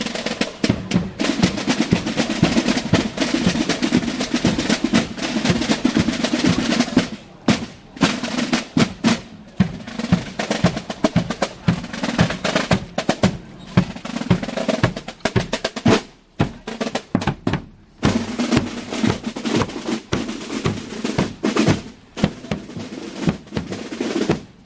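Marching corps of drums playing side (snare) drums and a bass drum. Dense rolls for the first several seconds, then a marching beat of separate strokes with a couple of brief breaks.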